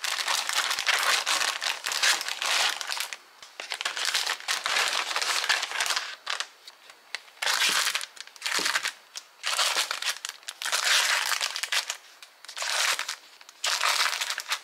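Plastic snack packets, a puffed-snack bag and fig bar wrappers, crinkling as they are handled and set into a drawer. The crinkling comes in several bursts with short pauses between them.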